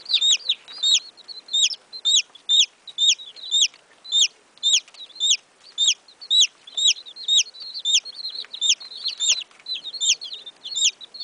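A brood of baby chicks peeping: a continuous stream of short, high-pitched peeps, each rising then dropping in pitch, about two or three a second.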